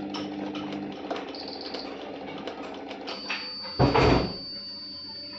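A steady high-pitched electronic beep from the Kent RO water purifier starts about three seconds in and keeps sounding. About a second after it starts there is a loud, short bump of handling.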